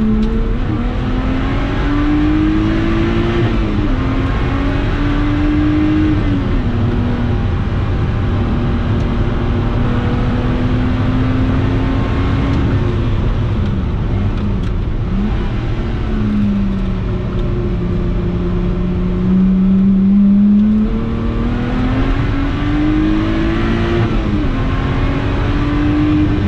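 Supercharged V6 of a Lotus Exige 350 Sport heard from inside the cabin, driven hard on track. The engine note climbs and drops back sharply at each upshift, holds steady for several seconds mid-way, then dips with quick rises as the car slows and downshifts, before climbing through the gears again. Steady wind and tyre rush runs underneath.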